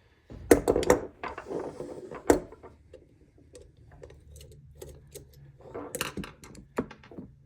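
Metal multitool parts clicking and knocking as they are handled and set down on a bench, with the loudest knock a little over two seconds in and another cluster of clicks near the end.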